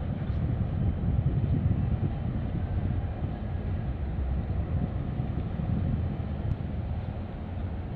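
Wind buffeting the microphone: a steady, gusty low rumble with no clear engine tone in it.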